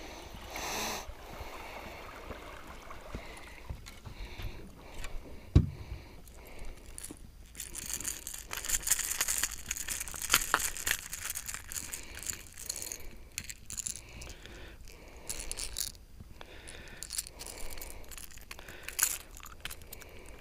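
Handling noise from landing a largemouth bass and its lure in a boat: scrapes, small clicks and rattles, with one sharp knock about five and a half seconds in.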